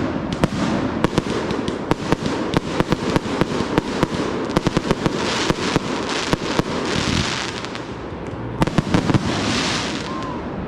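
Consumer fireworks going off in rapid succession: a dense run of sharp cracks and bangs, with hissing crackle effects in the middle and near the end.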